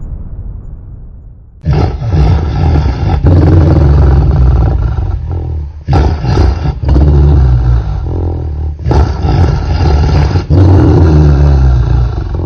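An angry dog's growls and barks played in slow motion, so they come out as deep, drawn-out, roar-like snarls in long stretches with short breaks between them. They start suddenly about a second and a half in, after a fading intro sound.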